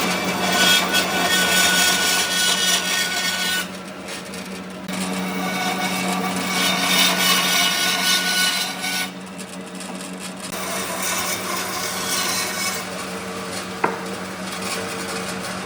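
A power tool working wood: a steady motor hum with three long passes of loud, rasping cutting noise, each dropping back to the hum between passes.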